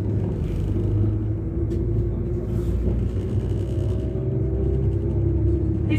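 Interior sound of a Class 195 diesel multiple unit under way: a steady low rumble from the underfloor diesel engine and running gear, with a constant hum and a faint rising tone a little past the middle.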